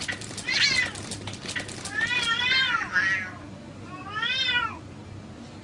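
Two cats fighting, yowling in rising-and-falling cries: three in all, the middle one long and breaking into a fast rattling growl. Quick knocks from the scuffle come through the first couple of seconds.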